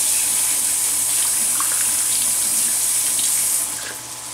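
Kitchen faucet running into a stainless steel sink as hands are rinsed under the stream, shut off about three and a half seconds in.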